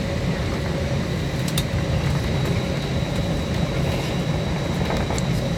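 Airliner cabin noise heard from a passenger seat while the plane taxis: a constant low rumble with a thin high whine on top.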